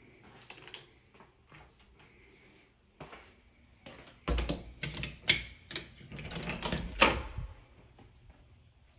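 Scattered light clicks, then a louder stretch of knocking, rattling and deep bumps from a little past the middle. Two sharp clicks stand out within it, the last one near the end of that stretch.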